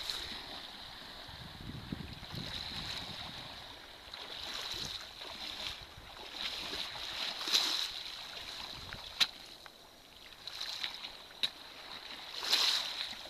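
Wading boots splashing through shallow sea water, then crunching on a pebble beach, with a few sharp clicks.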